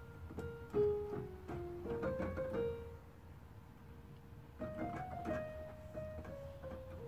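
Ensoniq electronic keyboard playing a melody in held notes, played live as a song snippet to be guessed. There is a short pause about halfway through before the tune resumes.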